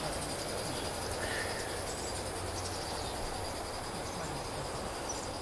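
Outdoor ambience with a steady, high insect trill.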